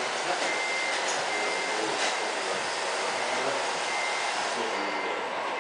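Radio-controlled model dump truck driving, its electric drive and gearbox running steadily, with a thin whine that comes and goes in short spells.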